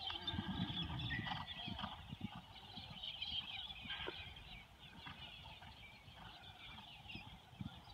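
A horse's hooves thudding on turf as it lands over a show-jumping fence and canters on, the thuds thinning out after a couple of seconds. Birds chirp throughout.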